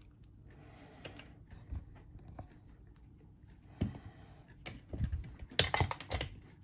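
Lock pick and tension wrench working a hand-held padlock: faint scraping, a knock about four seconds in, then a quick run of sharp metal clicks near the end.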